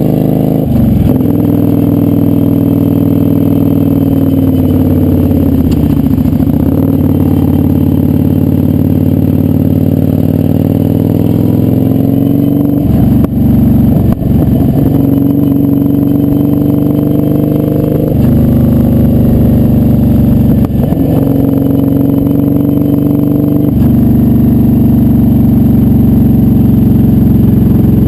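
Kawasaki Vulcan 900's V-twin engine running at riding speed, its pitch climbing gently and then dipping briefly about six times as the throttle is rolled off and reopened or gears are changed through the curves.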